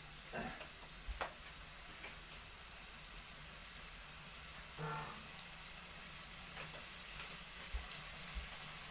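Pork chunks starting to sizzle in hot oil in a non-stick pot, a steady frying hiss that slowly grows louder as the meat sears.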